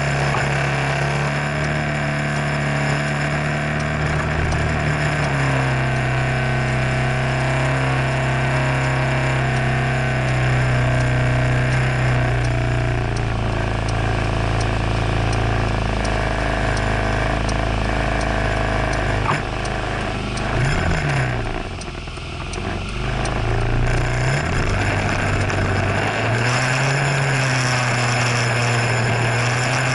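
Scooter engine idling steadily, wavering and briefly dipping about two-thirds of the way through, then revving up near the end as the scooter pulls away.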